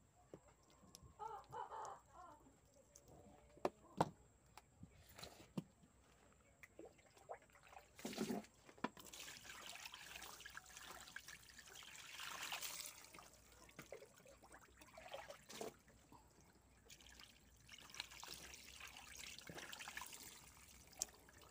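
Water poured and trickling over split tilapia on a wooden cutting board as the fish are rinsed, in two spells in the second half. Before that, a few faint knocks and ticks of the fish and knife being handled on the board.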